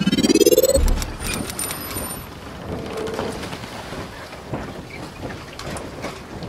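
Logo-intro sound effects: a rising whoosh that ends in a deep boom about a second in, a brief high shimmer of tones, then a steady hissing noise with scattered clicks.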